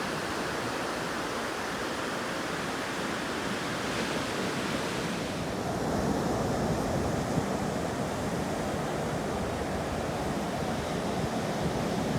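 Ocean surf washing in steadily, with wind on the microphone. About five and a half seconds in, the hiss thins and a deeper, fuller rush of water comes up.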